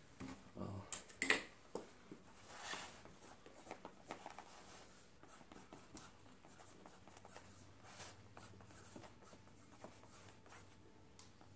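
Pen writing by hand on paper, a faint, fine scratching, after a few sharp knocks near the start.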